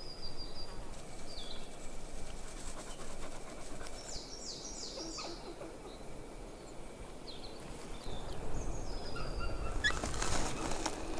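Wild birds calling: a thin high whistle at the start, then a quick run of four down-slurred chirps about four seconds in, with scattered single chirps. Brief rustling near the end.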